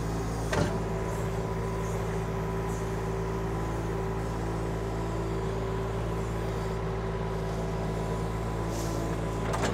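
KYMRON XH26 mini excavator's Kubota diesel engine running steadily at full throttle while the machine digs, with a single sharp click about half a second in.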